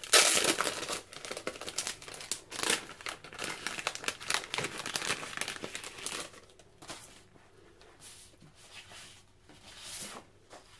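Clear plastic packet of die-cut cardstock ephemera pulled open, with a loud rip at the start, then crinkling and rustling as the cardstock pieces are slid out. It quietens to lighter rustling after about six seconds, with one brief crinkle near the end.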